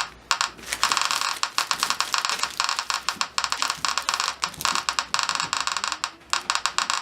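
Eberline E520 Geiger counter's SK-1 clicker giving rapid, uneven clicks as it counts a radioactive rock sample. The beta shield is closed, so it is counting mostly gamma radiation. The clicking briefly thins out near the start and again about six seconds in.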